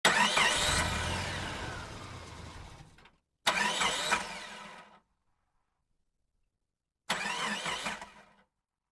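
A vehicle engine heard in three short bursts, each starting suddenly and fading out, with silent gaps between them.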